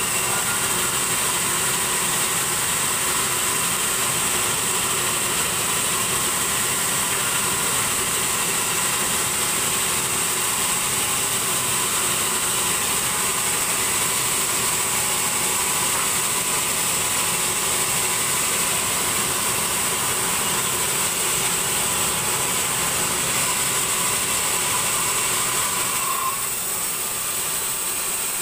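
Large band sawmill running steadily, its motor and band blade making a continuous machine noise with a high hiss, easing slightly near the end.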